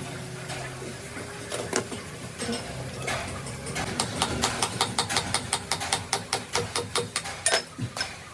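A steady low hum, then from about halfway a run of sharp taps, about four a second, with one louder knock near the end.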